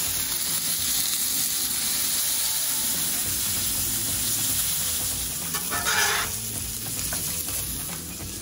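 Smash-burger patties and rye bread sizzling steadily on a Blackstone flat-top griddle, with a brief louder hiss about six seconds in.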